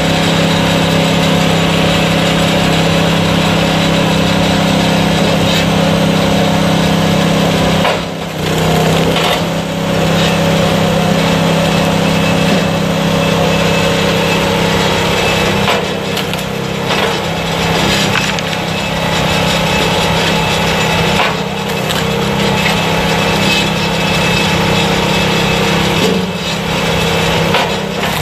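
DR K34 kinetic log splitter running: its gas engine runs steadily, spinning the belt-driven flywheels. Logs are split at intervals, and the engine note dips briefly at several points.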